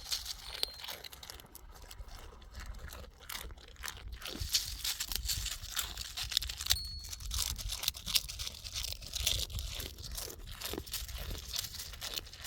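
Irregular crunching and scraping, with many small crackles close together.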